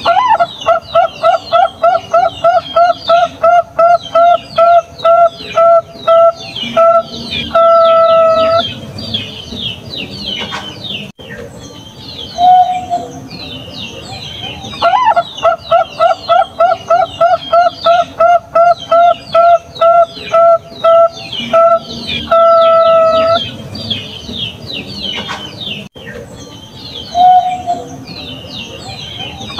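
Bangkok-type perkutut (zebra dove) singing: a rapid run of short coos, about four a second, ending in a longer held note, heard twice with a single short coo after each. Small birds chirp at a higher pitch throughout.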